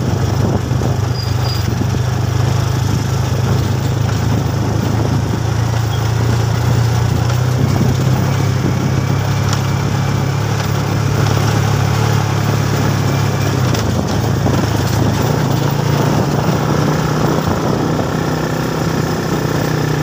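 Motorcycle engine running at a steady speed, a continuous low hum with its pitch shifting slightly about three-quarters of the way through.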